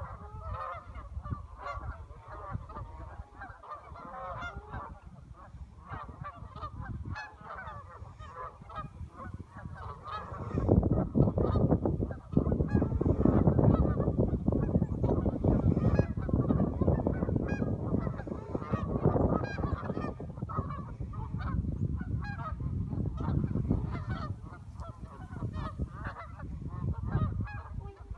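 A flock of geese on the water calling with many overlapping honks. From about ten seconds in, a loud low rumble joins the calls until near the end.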